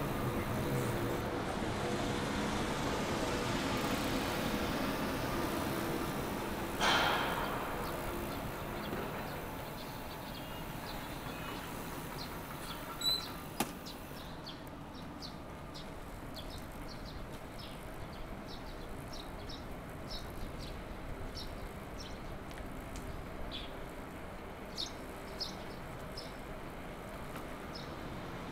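Street ambience heard from a moving bicycle. Traffic noise fills the first half, with one brief louder pass about seven seconds in and two sharp clicks around halfway. The second half is quieter, with scattered short high chirps or ticks.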